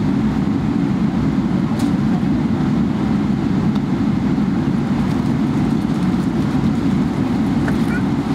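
Steady low rumble of cabin noise inside a Boeing 777-300ER on the ground before takeoff: engine and air-conditioning noise that stays even throughout.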